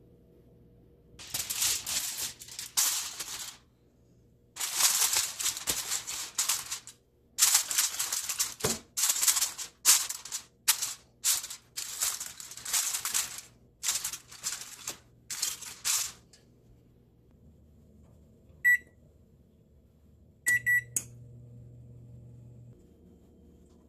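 Aluminium foil crinkling and rustling in many irregular bursts as it is handled and pressed over a baking dish. Near the end, a single electronic beep and then two quick beeps from an oven's control panel as the temperature is set, with a low hum for a couple of seconds after.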